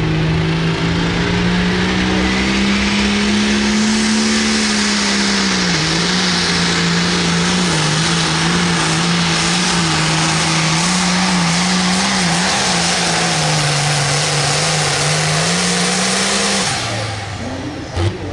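Limited Pro Stock pulling tractor's turbocharged diesel engine running flat out under load on a pull. The engine note wavers up and down through the pass, then drops off near the end as the throttle comes off.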